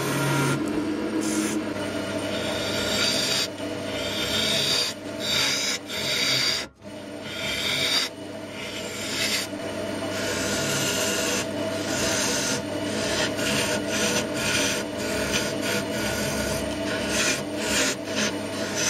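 A turning tool cutting into a spinning wood blank on a lathe, a continuous scraping, shaving noise that rises and falls with each pass over the steady hum of the lathe. It breaks off for a moment about a third of the way through.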